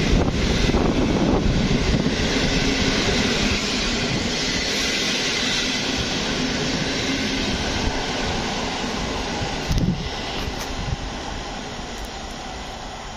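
PKP Intercity passenger coaches rolling past on the rails, the steady wheel-on-rail noise fading as the end of the train moves away. A short thump comes about ten seconds in.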